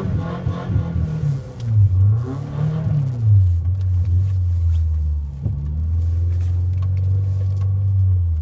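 Subaru Forester's flat-four engine revving up and down a couple of times in the first three seconds, then holding a steady drone at constant revs.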